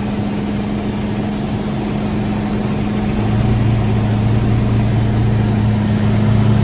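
Cummins 400 inline-six turbo diesel in a 1978 Peterbilt 359 idling steadily just after a cold, jump-started and ether-assisted start, its idle being set. About three seconds in the engine note deepens and grows a little louder.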